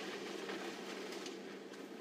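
African elephant pulling and breaking branches in thick bush: faint rustling and snapping of leaves and twigs over a steady low hum.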